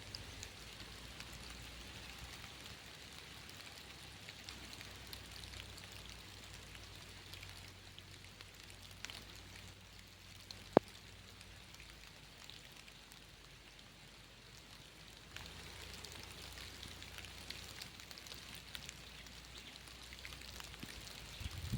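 Steady rain falling, a soft even patter with scattered drop ticks. A single sharp click about halfway through.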